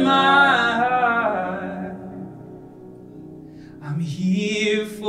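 Background music with a singing voice; the sung phrase fades out about two seconds in, and the music swells again near the end.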